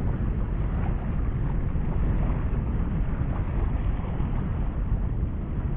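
Wind buffeting the camera's microphone: a steady low rumble with no breaks.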